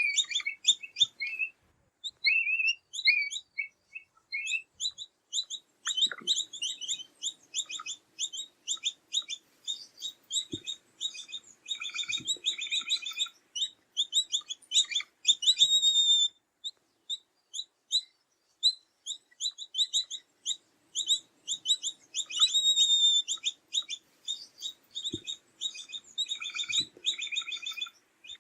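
Capybara chirping: rapid runs of short, high chirps, many a second, broken by a pause of a second or two near the middle, with a faint low hum beneath some of the runs.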